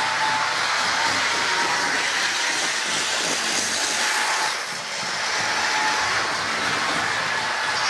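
Model electric trains running on the layout's track: a steady whirring motor and wheel noise with a faint whine, as one train passes close by about halfway through.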